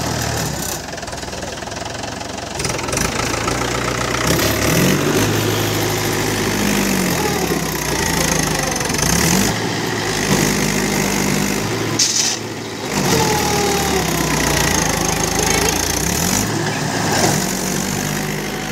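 Mahindra 575 DI tractor's four-cylinder diesel engine revving up and dropping back repeatedly as it pulls a loaded trailer through deep mud under heavy load.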